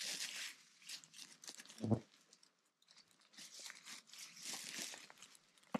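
Dry pine needles rustling and crunching in several bursts as a gloved hand sweeps them aside, with a dull thump about two seconds in and a quieter pause after it.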